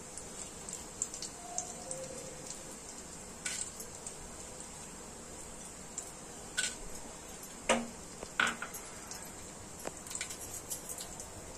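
Whole spices dropped into hot ghee in an aluminium pressure cooker: a few small clicks and taps against the pot, the loudest two about eight seconds in, over a faint sizzle with scattered crackles.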